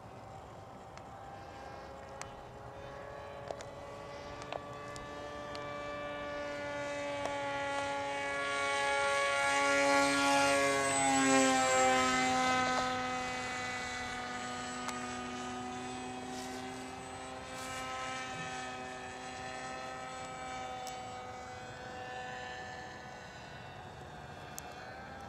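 Model airplane's motor and propeller buzzing as it flies past. The buzz grows louder, peaks about ten to twelve seconds in with its pitch dropping as it passes, then fades as the plane moves away.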